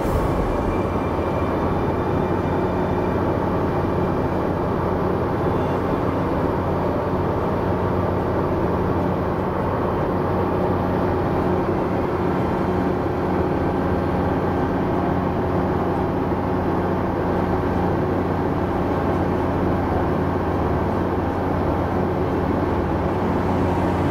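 Engine and propeller of a light high-wing aircraft droning steadily in flight, heard inside the cabin.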